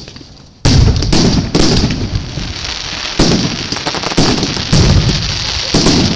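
Fireworks going off: a short lull, then a run of loud, irregular bangs starting about half a second in, each followed by a rumbling echo.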